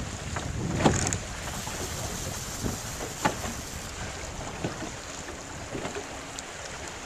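Wind and choppy water lapping against a small boat's hull, with a few sharp slaps; the loudest comes about a second in and another a little past three seconds.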